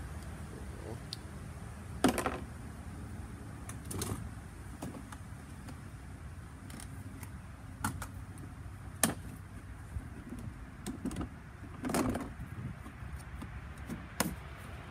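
Cardboard boxes and tool packaging being handled and unpacked: scattered knocks, taps and rustles, the loudest about 2 s in, around 9 s and around 12 s, over a low steady background rumble.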